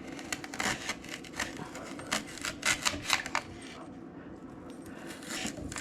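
Ginger root being cut into pieces with a knife: a run of quick clicks and knocks for about three seconds, a short pause, then a few more near the end.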